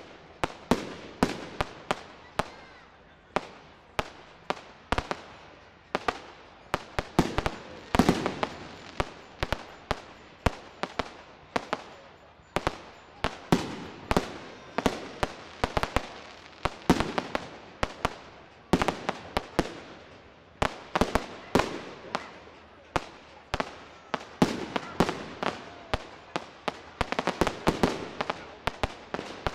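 Fireworks display: aerial shells bursting in a continuous barrage of sharp bangs, about two a second, some coming in quick clusters.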